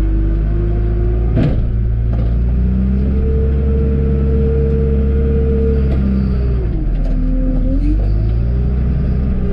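John Deere 310G backhoe's diesel engine working under load while plowing snow, revving up about three seconds in, holding, dropping back around seven seconds and climbing again near the end. A single clank about a second and a half in.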